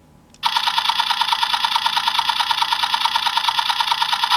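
DX Gatrike Phone toy playing an electronic sound effect through its small speaker: a fast, even rattling of about a dozen pulses a second that starts about half a second in.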